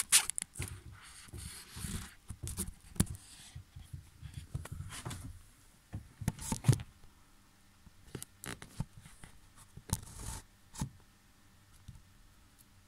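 Handling noises: rustling with scattered clicks and knocks, the loudest knock about six and a half seconds in, then only a few sparse clicks.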